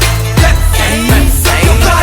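Loud music with a heavy bass beat, the drum hits falling in pitch about twice a second.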